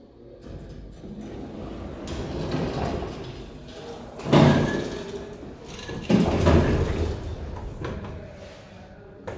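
1989 Schmitt + Sohn lift's stainless steel sliding doors opening with a building rumble, then two loud thumps about two seconds apart.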